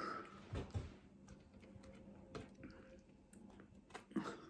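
Quiet eating sounds: a few faint, scattered clicks of a fork on the plate as spaghetti is twirled and lifted, with a soft breath at the start.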